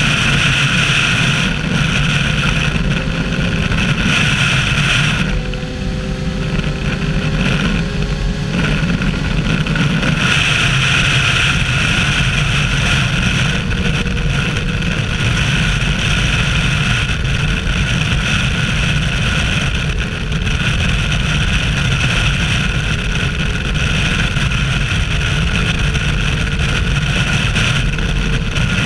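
Kawasaki Versys 1000's inline-four engine running at highway speed under heavy wind rush on the camera. The engine note rises in pitch now and then as the throttle is opened.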